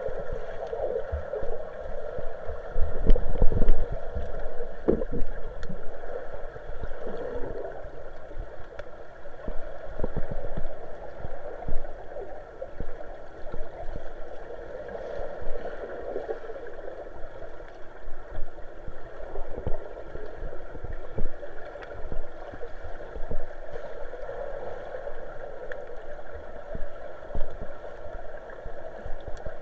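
Muffled underwater sound picked up by a camera submerged in water: a steady gurgling rush of moving water, with a few low thumps about three to five seconds in.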